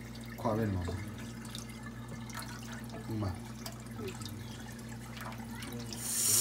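Wooden spoon stirring vegetable pieces in a pan of water in a stainless-steel sink: faint sloshing and drips over a steady low hum. A brief voice sounds twice. Near the end a loud rush of running water begins.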